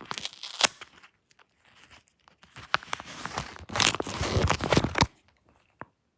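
Paper pages of a homemade squishy book crinkling and crackling as they are handled, in a short burst at the start and a longer bout from about two and a half to five seconds in, then a single click near the end.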